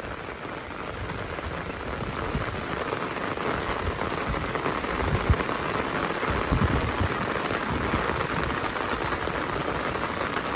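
Heavy rain pouring down steadily, growing louder over the first few seconds, with a couple of brief low thumps about halfway through.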